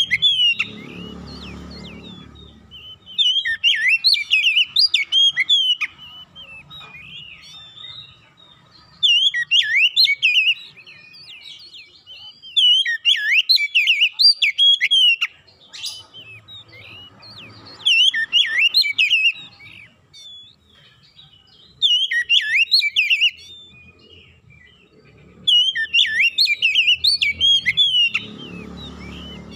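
Oriental magpie-robin singing: loud, varied whistled phrases of two to three seconds each, repeated about six times with short pauses between them.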